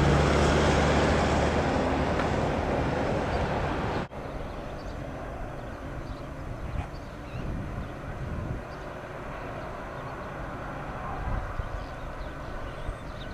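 Wheat train, diesel locomotives hauling a long rake of grain hopper wagons, rumbling away into the distance. A louder rumble fades over the first few seconds and drops off suddenly about four seconds in. After that a fainter, steady low rumble runs on.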